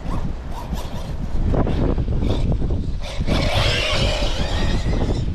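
Wind buffeting the microphone, with a Team Corally Asuga XLR 6S electric RC buggy driving on grass. Its motor whine and tyre noise come in louder about three seconds in, as it passes close.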